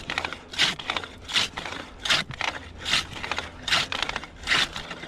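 Homemade hand ice saw cutting through thick lake ice: a rasping scrape with each stroke, in a steady rhythm of about one stroke every three-quarters of a second.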